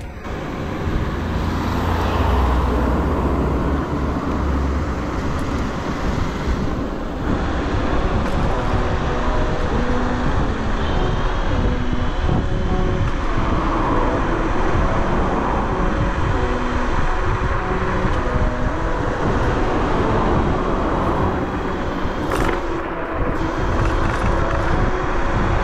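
Wind rushing over the microphone and road noise while riding a Bluetran Lightning 72V electric scooter: a steady rumbling hiss, with music faintly underneath.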